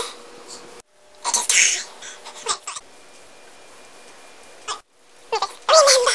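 Sped-up, pitch-raised girls' voices: a few short high-pitched squeals and yelps broken up by abrupt edit cuts into silence. The loudest, near the end, is a long squeal sliding down in pitch.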